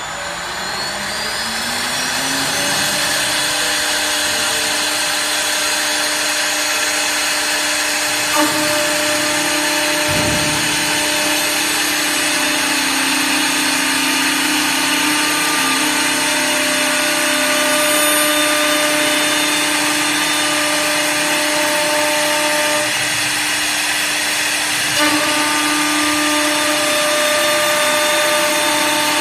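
Wisdom WS-L1516S two-spindle CNC wood lathe cutting two spinning wooden balusters at once. A rising machine whine over the first couple of seconds settles into a steady motor hum over the hiss of the cutters shaving wood. Two brief clicks, about a third of the way in and again near the end, come where the motor tone shifts.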